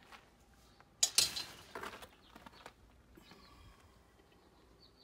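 Two footsteps crunching on gravel about a second in, then faint chirping of birds.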